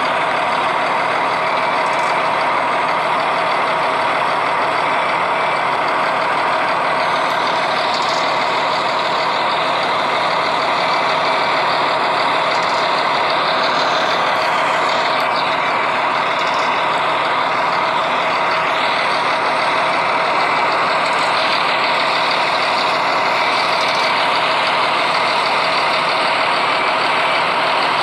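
Steady hiss of rain and wet-road traffic noise on a city street where buses run, unbroken and even in level.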